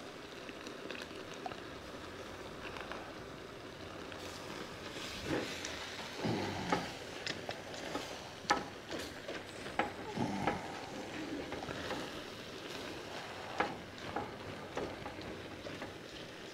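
Seafood stir fry with noodles frying in a pan: a steady sizzling hiss, with frequent clicks and scrapes of a utensil against the pan as it is stirred, thicker from about four seconds in.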